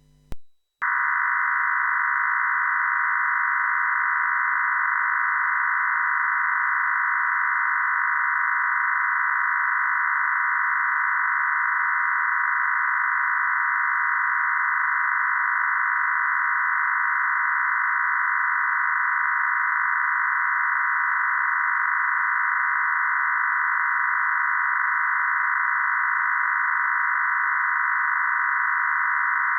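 FreeDV 0.91 digital voice modem signal, the undecoded multi-carrier transmission as heard over the air. It is a steady, unchanging hum of many closely spaced tones that starts just under a second in and holds at one level.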